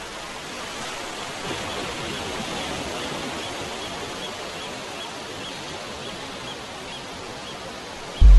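Wind rushing through tree leaves, a steady rustling hiss, with a faint high chirp repeating about three times a second. A loud low hum cuts in abruptly at the very end.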